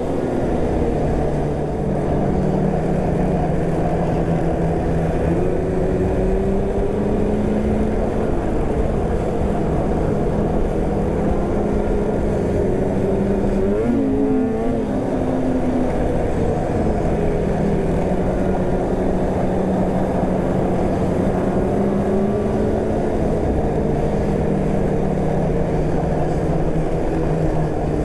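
Polaris snowmobile engine running steadily at trail cruising speed, its pitch drifting slightly with the throttle and briefly rising and falling about halfway through, over a steady rushing noise.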